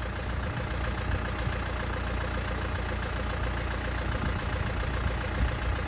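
A steady engine hum, a motor idling without change.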